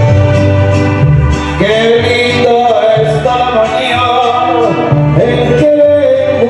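A song playing: stringed instruments with a steady bass line, and a singing voice that comes in about a second and a half in.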